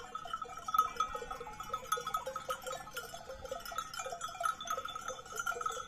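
Many bells on a grazing flock of sheep clanking and jingling without pause, overlapping at a few similar pitches.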